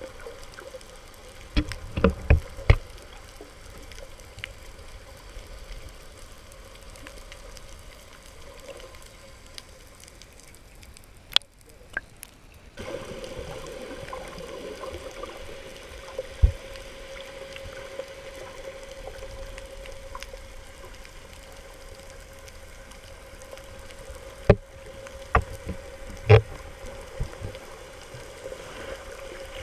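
Underwater sound heard through a GoPro's waterproof housing while snorkelling: a muffled wash of water with scattered sharp knocks and clicks. A steady hum comes in about halfway through.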